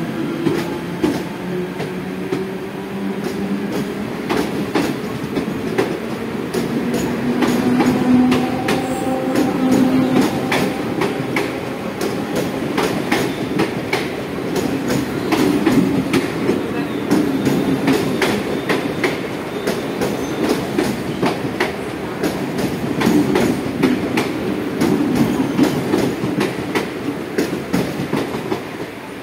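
Mumbai suburban EMU local train pulling out along the platform, its electric traction motors whining slowly up in pitch as it gathers speed. The wheels click steadily over the rail joints as coach after coach goes by, and the sound falls away at the very end as the last coach passes.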